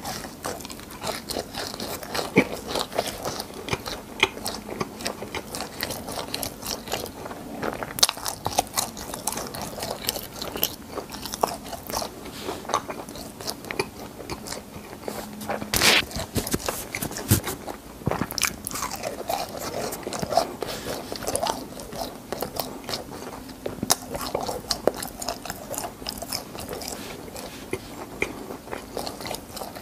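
Close-miked eating of crispy fried cheese balls: bites and chewing with many sharp, irregular crunches, the loudest crunch about halfway through.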